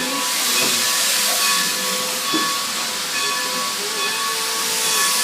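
Steam locomotive venting steam: a steady, loud hiss.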